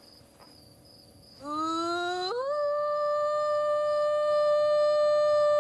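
A woman imitating a wolf howl through cupped hands. About a second and a half in, the call starts low and slides upward, jumps higher, then is held as one long steady note.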